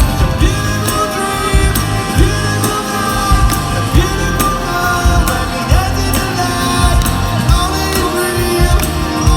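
Live rock band playing, with a singing voice over drums and bass.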